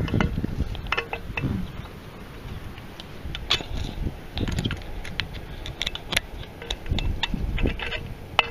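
Multimeter test probes clicking and scraping against a compressor's metal terminal pins and steel housing as they are placed, with irregular small clicks and a few low handling bumps.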